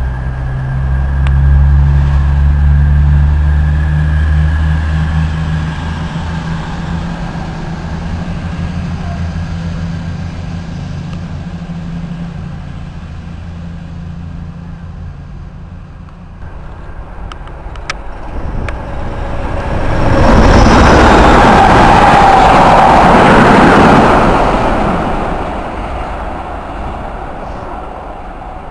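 Class 222 Meridian diesel multiple unit's engines running with a low, steady drone that fades over several seconds as the train draws in. About two-thirds of the way through, a train's noise swells into a loud rush, holds for about four seconds and falls away as it passes close by.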